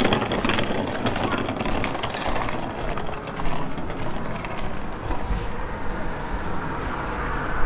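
City street background noise: a steady wash of traffic with scattered light clicks and knocks.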